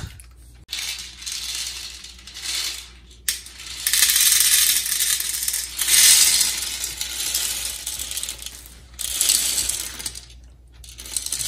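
Hard unpopped popcorn kernels poured from a plastic jar into a plastic half-cup measuring cup: a dense rattle of kernels hitting plastic, in a few pours with short breaks between.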